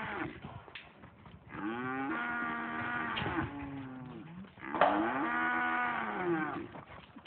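Angus steers mooing: two long moos of about two seconds each, the second starting soon after the first ends.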